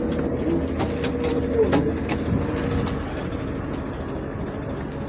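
City bus engine idling at its last stop, a steady hum with scattered clicks and knocks as a passenger gets off. About three seconds in the hum drops and one of its tones stops.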